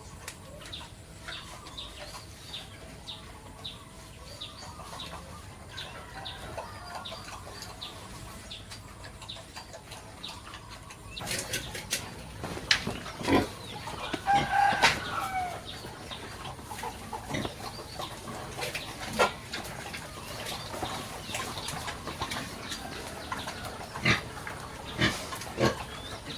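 Farmyard chickens clucking, with a repeating high chirp about twice a second at first. From about eleven seconds in, louder sharp knocks and clatter join in, with a short call around the middle.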